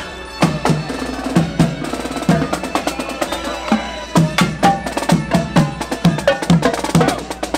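Snare drums played by marching parade drummers in a steady beat of sharp strikes, over upbeat parade music.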